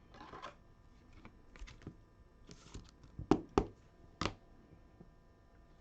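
Trading cards being handled and flipped through: a few soft sliding scrapes, then several sharp clicks of card edges about three to four seconds in.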